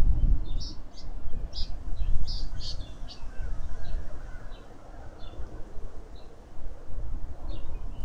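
Wind buffeting the microphone in gusts, with short high bird chirps over it, many in the first few seconds and fewer after.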